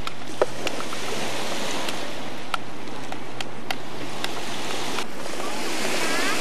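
Small waves washing onto a sandy beach, a steady hiss of surf, with a few sharp clicks scattered through it.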